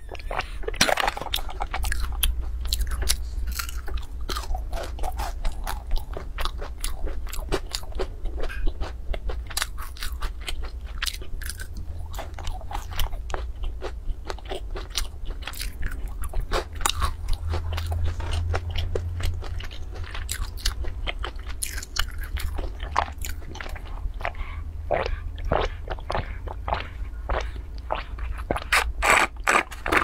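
Close-miked crunching and chewing of a crispy, sesame-coated fried snack: a dense, irregular run of sharp crackles and bites throughout.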